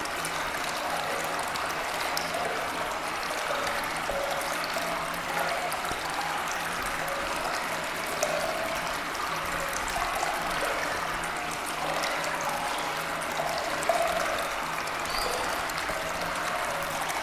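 Steady running-water noise, like a flowing stream, even and unbroken throughout.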